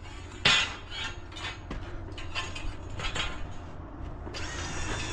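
Sheet-metal ductwork being handled and fitted: a sharp metal clank about half a second in, then several lighter knocks and rattles.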